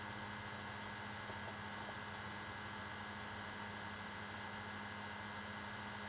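Room tone: a steady low hum with a faint hiss under it.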